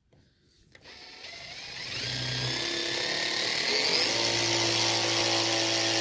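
Cordless drill boring into a timber door with a wood drill bit, clearing the keyhole slot for a euro cylinder lock. The motor starts about a second in, winds up in pitch over the next few seconds, then runs steady.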